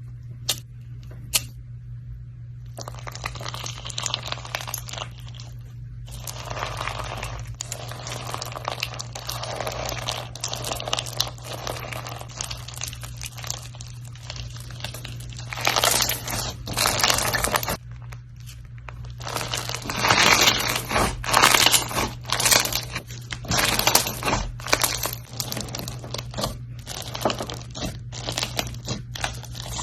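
Hands squeezing, pressing and stretching slime, making dense runs of small crackles and pops that grow louder about halfway through and stay busier toward the end. A steady low hum sits underneath.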